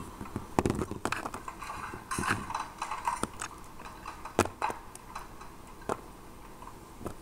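Plastic Littlest Pet Shop figures and a small toy pie being handled by hand, knocking and clicking against a plastic toy block in scattered, irregular taps.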